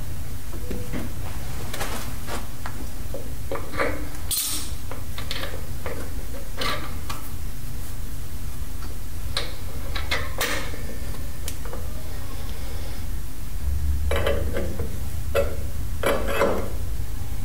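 Scattered metal clinks and scrapes of steel hydraulic fittings and an open-end wrench as a hose fitting is threaded onto a tractor's gear-type hydraulic pump and tightened, busier near the end. A steady low hum runs underneath.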